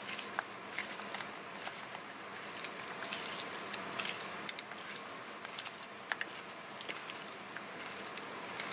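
Raw pig intestines being squeezed and kneaded by a gloved hand in a stainless steel bowl: irregular wet squelches and small crackles over a steady faint hiss.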